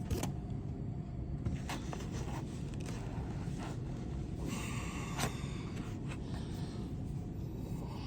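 Light handling noises: a few sharp clicks and a short rustle as the wrench set and its bits are moved about, over a steady low background hum.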